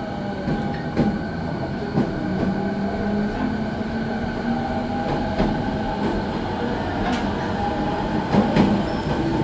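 Electric commuter train running, heard from inside the carriage: a steady rumble with a constant motor hum, and sharp clicks of the wheels over rail joints now and then, two of them close together near the end.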